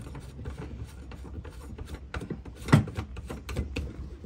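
A yellow twist-lock shore-power plug being handled and worked at a boat's power inlet: plastic rubbing and small clicks, with one sharp knock nearly three seconds in.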